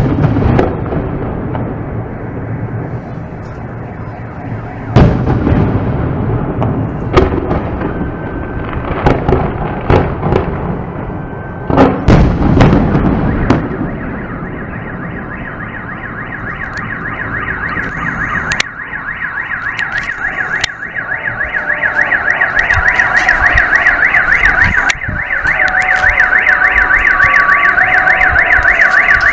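Fireworks shells bursting overhead, several loud booms with crackle in the first half. A car alarm sounds underneath, set off by the blasts. It grows louder in the second half as a fast warbling wail with a rapid chirping beat near the end.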